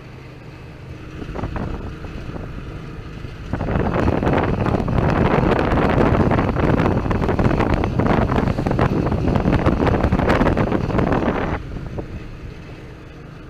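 A motor vehicle running on the move, with wind buffeting the camera microphone. The wind rush turns much louder about three seconds in and drops back a couple of seconds before the end.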